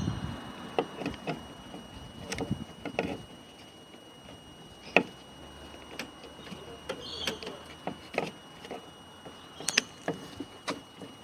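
Irregular clicks and knocks of a replacement car door handle and its plastic and metal parts being handled and fitted into the door, with one sharper click about five seconds in.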